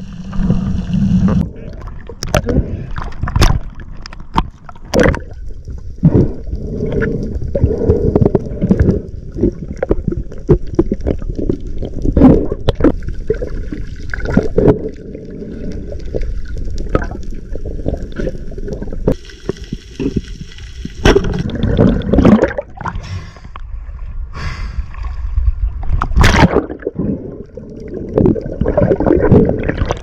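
Water gurgling and sloshing around an action camera underwater, with a constant low rumble and frequent sharp clicks and knocks.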